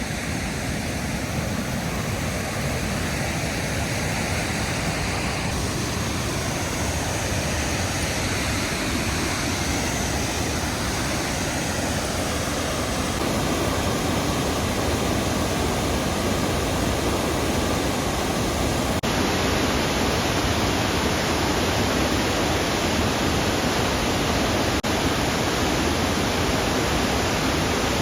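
Steady rushing of a mountain creek running high with snowmelt: an even, unbroken roar of fast water over rapids.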